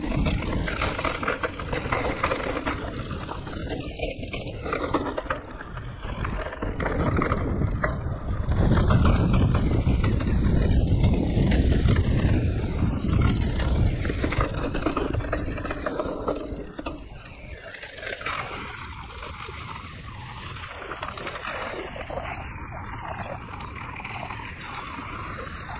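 Giant Reign E+ e-mountain bike riding down a rough enduro trail: tyres rolling and scraping over dirt, roots and stones, with the frame and parts rattling. It gets louder a few seconds in and eases off after about two thirds of the way through.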